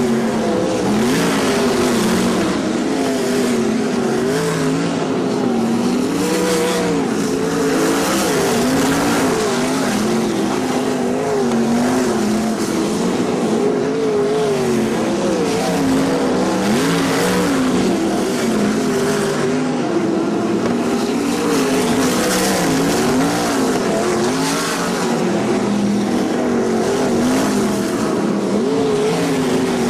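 A field of V8 sprintcars racing on a dirt oval, several engines heard at once, their notes rising and falling as the cars come off and onto the throttle around the track.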